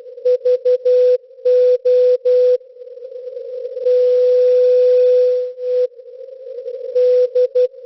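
Morse code (CW) from the Greek coastal station SVO Olympia Radio heard on a shortwave receiver: a steady tone of about 500 Hz keyed in dots and dashes over receiver hiss. It sends three dots and a dash, then three dashes (V and O, the end of the call sign SVO), then one long unbroken tone of about a second and a half, before the keying resumes near the end.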